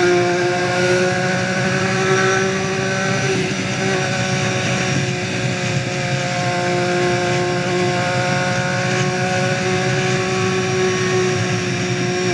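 Motorcycle engine running through a FullRace aftermarket exhaust, held at a steady engine speed with an even drone.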